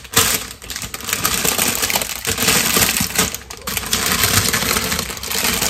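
Crinkling and rustling of a flower bouquet's plastic wrapping as it is handled, a dense run of small crackles and clicks.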